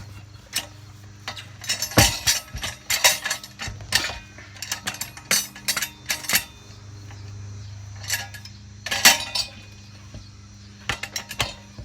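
Irregular metallic clanks and clinks of steel tire tools against a Willys Jeep steel wheel rim on a manual tire changer, as the tire is worked off the rim.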